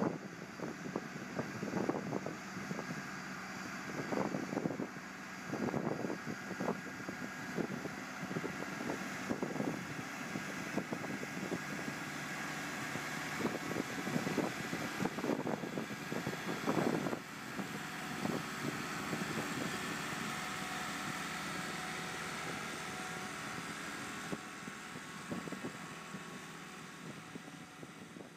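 Diesel engines of a Caterpillar Challenger 45 crawler tractor and a pull-type cement spreader running steadily as the rig passes. Gusts of wind buffet the microphone throughout the first two-thirds, and the sound fades away near the end.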